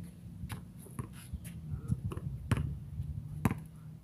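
Basketball bouncing on a concrete court: sharp slaps roughly once a second, the loudest two near the end, over a steady low hum.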